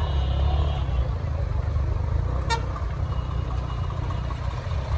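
Low, steady rumble of tractor and truck engines running in a slow-moving procession, with a short high horn toot in the first second and a brief sharp click about halfway.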